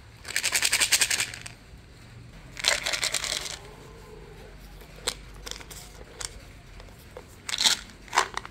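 Supplement tablets rattling in a plastic pill bottle as it is shaken in two short bursts, followed by several single light clicks and taps.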